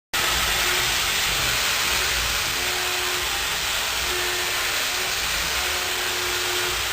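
High-speed milling of a stainless steel part in a CNC machine: a steady, loud hiss that starts abruptly, with a faint hum coming and going underneath.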